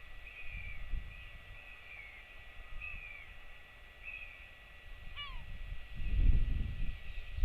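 Wind buffeting the microphone in low gusts, loudest about six seconds in, over a string of short, high, falling bird calls in the background. About five seconds in comes one sharper call that drops steeply in pitch.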